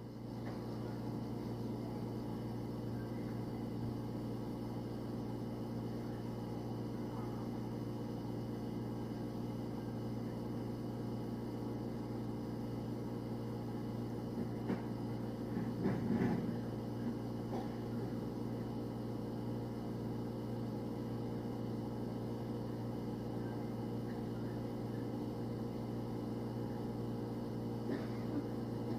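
Steady electrical hum of a refrigerator's compressor and fan, heard from inside the closed fridge, with a few faint knocks about halfway through and again near the end.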